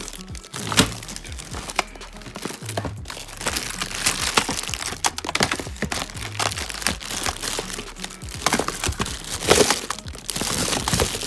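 Plastic bags crinkling and crackling as hands dig through a packed plastic storage bin of bagged electronics and cables, with irregular sharp cracks and rustles, louder near the end. Low background music with a steady bass line runs underneath.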